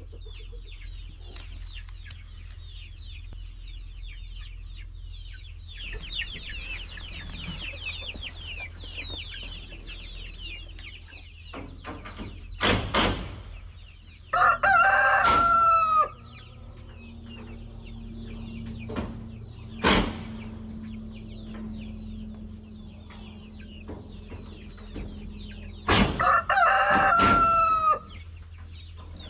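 A rooster crowing twice, each loud crow lasting about two seconds, the first about halfway through and the second near the end. Between them, chickens cluck and chirp, and there are a few sharp knocks.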